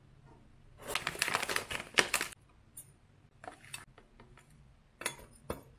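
Crinkling of a pouch of dried linden tea as it is opened and tipped, loudest about two seconds in, followed by a few light ticks as the dried leaves are poured into a glass teapot.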